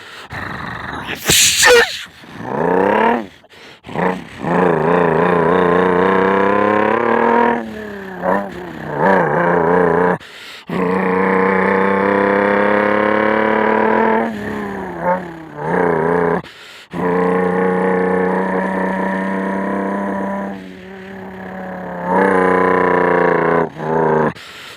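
Mouth-made imitation of an 18-wheeler truck. A brief hiss like an air brake comes about a second in. Then a droning engine tone climbs in pitch and levels off several times, with short breaks in between.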